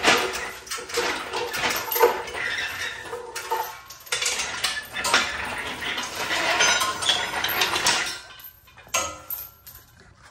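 Steel lifting chains on a shop engine hoist clinking and rattling as they are handled. Many quick metallic jingles and clanks that thin out near the end.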